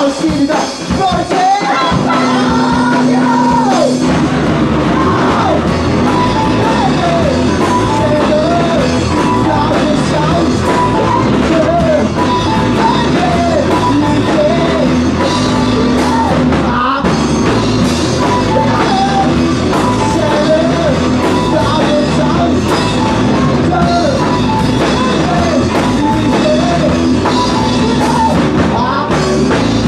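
A rock band playing live, with singing over electric guitar and drums.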